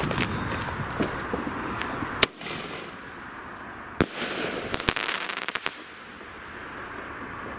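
Weco Sky Shot single-shot firework: a hiss as the fuse burns, a sharp pop as the shell launches a little over two seconds in, and a loud bang as it bursts about four seconds in, followed by a quick run of crackles from the crackling stars.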